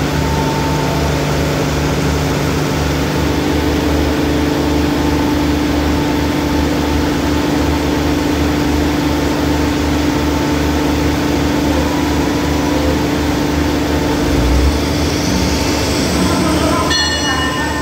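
Diesel engine of a stopped passenger train running steadily at idle, a low even hum. Near the end a hiss rises, followed by a short ringing tone.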